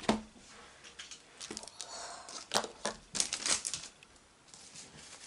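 Foil wrapper of a Pokémon booster pack crinkling and being torn open, a series of sharp crackles and rips that bunch together about three seconds in.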